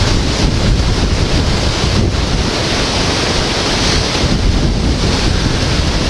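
Hurricane wind buffeting the microphone: a loud, steady rush of wind and rain with a heavy, uneven rumble underneath.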